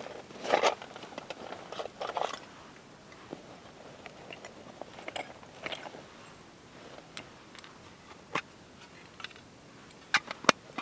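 Crinkling and rustling of a tool roll being unwrapped and handled on grass, with scattered small clicks. The sharpest clicks come in a quick cluster near the end, as a tool is drawn out of the roll.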